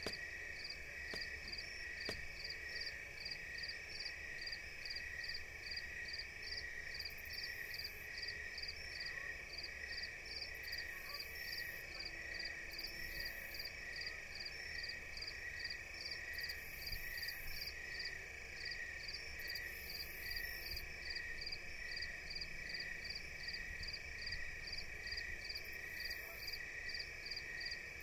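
Night-time ambience of chirping insects and frogs: evenly repeating chirps, about two or three a second, over a continuous high trill that holds steady throughout.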